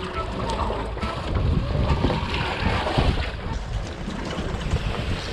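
Wind buffeting the microphone aboard a fishing boat at sea, with water sloshing and a few scattered knocks.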